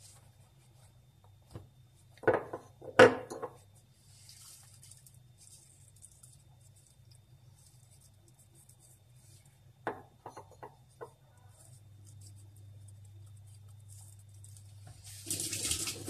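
Kitchen handling sounds on a countertop: two sharp knocks about two and three seconds in, a few light clicks around ten seconds, and a short hissing rush near the end, over a low steady hum.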